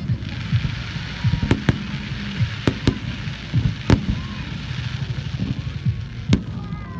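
Fireworks going off: irregular sharp bangs and pops, about seven of them, over a steady hiss that fades out about five seconds in.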